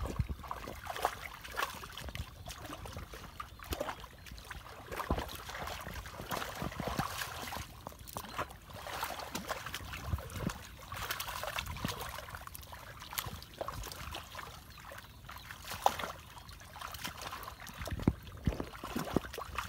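Hands and arms working through shallow muddy water, with irregular small splashes and sloshing.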